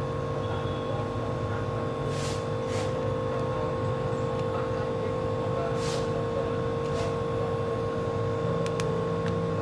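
A steady, low machine hum with two constant tones, broken by a few brief hissy strokes and faint ticks.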